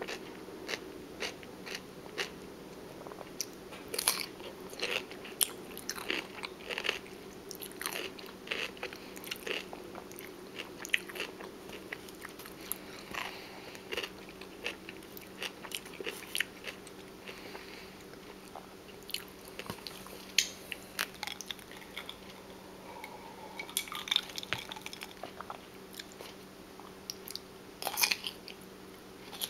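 Close-miked chewing of crunchy raw food: irregular sharp crunches and crackles from bites and chewing, with no regular rhythm.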